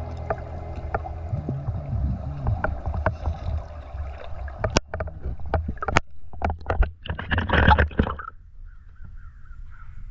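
Water bubbling and sloshing around a camera held at the water's surface, with sharp splashy clicks about halfway in and the loudest splashing near eight seconds, then much quieter once the camera is above water.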